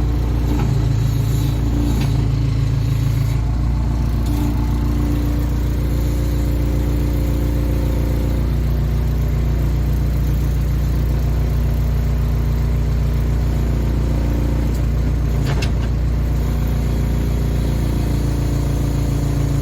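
Case 580K backhoe's diesel engine running steadily, its note shifting now and then as the digging controls are worked. There is a single sharp knock about fifteen and a half seconds in.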